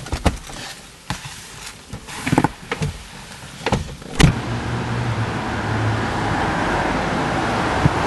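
Car door and interior clicks and knocks as a driver settles into a Mercedes-Benz. About four seconds in, a sharp click is followed by the car's engine starting and running steadily.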